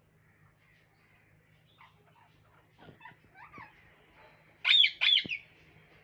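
Parrots calling: a few soft chattering notes, then two loud, harsh squawks in quick succession near the end.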